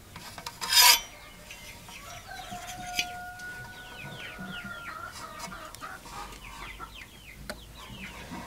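A brief loud scraping rub about a second in, as the folded sheet is handled. Outdoor birds chirping in quick short falling notes follow, with one long steady call held for a couple of seconds in the middle.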